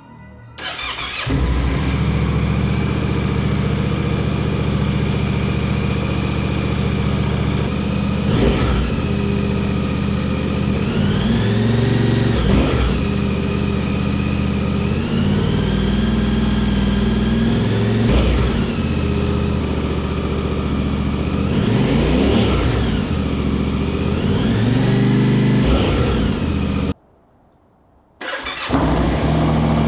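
2024 Yamaha Ténéré 700's 689 cc parallel-twin starting about a second in, then idling through an aftermarket AliExpress high-mount muffler with its baffle in. The idle is broken by about five quick throttle blips that rise and fall in pitch. The sound cuts out for about a second and a half near the end and then the engine is running again.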